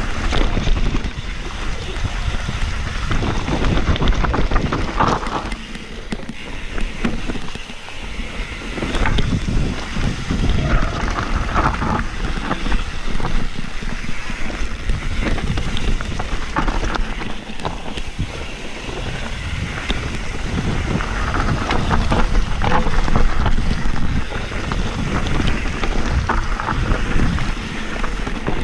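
Wind buffeting a helmet camera's microphone during a mountain-bike descent, with dense rattling and knocking from the bike and its tyres running over rough dirt trail.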